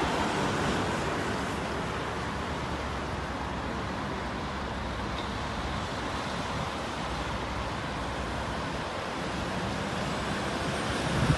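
Steady road traffic: cars, vans and a lorry driving past, a continuous rush of engines and tyres that grows slightly louder near the end as the lorry comes closer.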